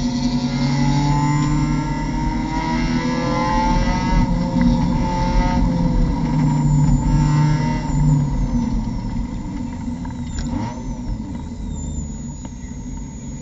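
Mazda MX-5 Cup race car's four-cylinder engine heard from inside the cockpit, its note rising under throttle through the first half. After about eight seconds it eases off and falls in pitch as the car brakes and slows.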